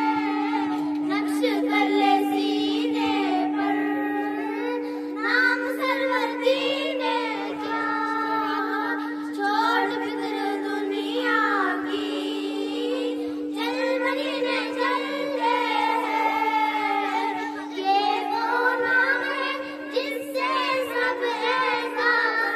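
A small group of young girls singing a song together into a handheld microphone, with a steady hum held on one pitch underneath the whole time.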